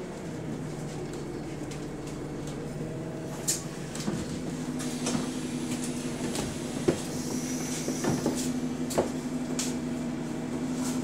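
Bus engine idling steadily at a stop, heard from inside the passenger saloon, with several sharp clicks and knocks from the open doors and passengers getting off.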